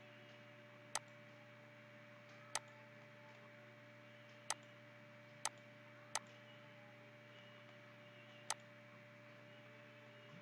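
Computer mouse button clicking six times at uneven intervals, sharp single clicks over a faint steady electrical hum.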